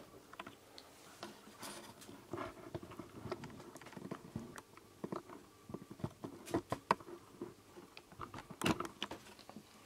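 Handling noise from a hand-held camera being moved: irregular small clicks, taps and rustles close to the microphone, loudest about six and a half and nine seconds in, over a faint steady hum.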